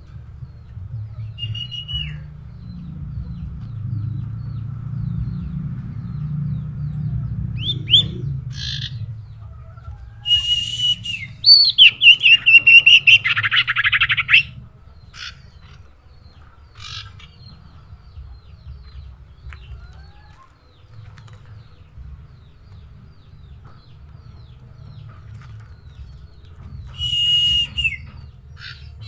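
Common iora (cipoh) calling: a few high whistles, each held and then dropping at the end, and around the middle a loud, rapid run of chattering notes lasting about four seconds. A low rumble runs underneath.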